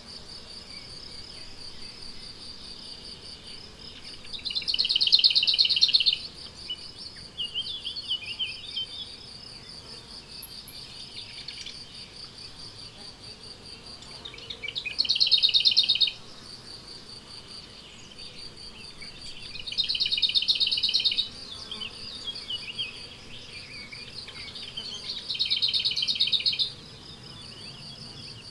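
Meadow insects stridulating: a steady, fast-pulsing high trill, broken by four louder buzzing bouts of one to two seconds each. Short bird chirps come in between.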